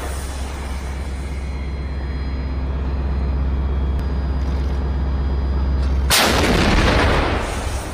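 A 155 mm self-propelled howitzer fires a single shot about six seconds in, a sudden blast that echoes and dies away over about a second and a half. Before the shot the rumble of a previous round fades, and the vehicle's engine hums steadily and low underneath.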